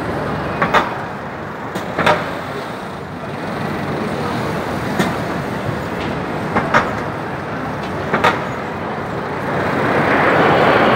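Steady city traffic noise with several short, sharp knocks. About nine and a half seconds in, the rushing noise of an approaching formation of military jets starts to swell and grows louder.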